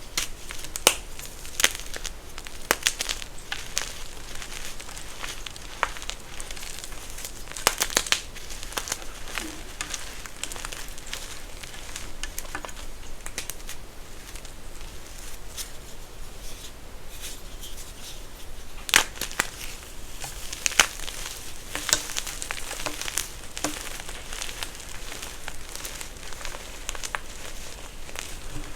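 Close-up crunching and crumbling of a crunchy material being crushed, with a steady fine crackle and irregular sharp snaps, the loudest clusters about a second in, around eight seconds in, and again about two-thirds of the way through.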